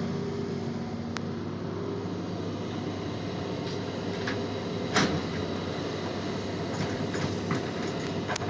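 Crawler excavator's diesel engine running steadily under hydraulic load as the boom swings and the bucket digs into earth. Sharp clanks cut through, one about a second in and a louder one around five seconds in.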